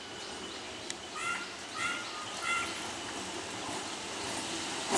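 A bird calls three times, about half a second apart, over the low, steady rumble of an approaching electric local train that grows louder near the end.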